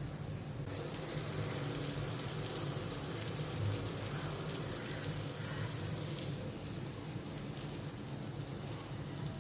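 Prawns sizzling in oil on a tawa: a steady crackling hiss with fine pops, growing stronger about a second in, over a low steady hum.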